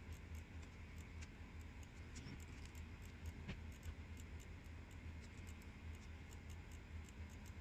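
Faint, quick clicks of a computer mouse and keyboard, a few a second, as objects are selected and deleted, over a low steady hum.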